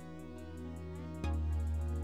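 Background music with sustained notes over a steady bass; a louder bass note comes in a little past halfway.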